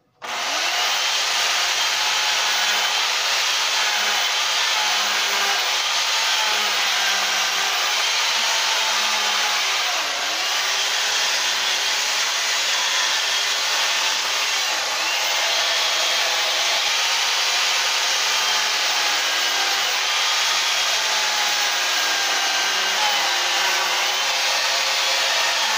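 Corded electric STIHL chainsaw running and cutting wood: a steady, loud whining buzz whose pitch dips and rises slightly as the chain bites. It starts abruptly at the beginning.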